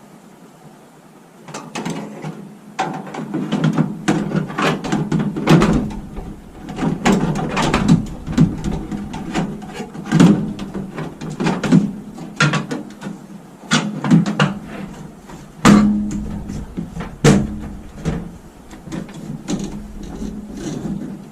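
Irregular clicks, knocks and rattles of parts of a microwave oven being handled and fitted by hand during repair work.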